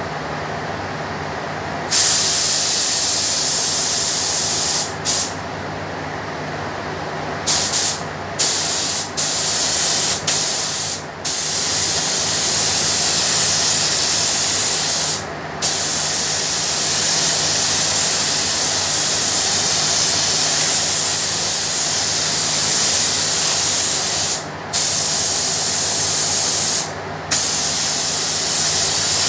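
Paint spray gun hissing as clear lacquer is sprayed onto a car bumper, in long passes broken by short pauses where the trigger is released. A steady low hum runs underneath.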